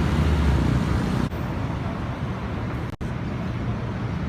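Street traffic noise: a steady low rumble of passing vehicles with a hiss over it. It drops abruptly a little over a second in and cuts out for an instant about three seconds in, then carries on quieter.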